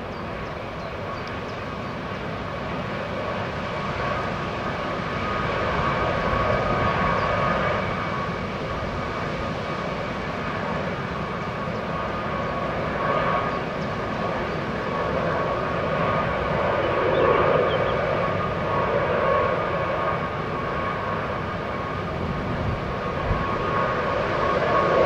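Antonov An-124-100M's four D-18T turbofan engines running at taxi power: a steady high whine over a broad rumble that swells and eases in loudness several times as the freighter rolls past.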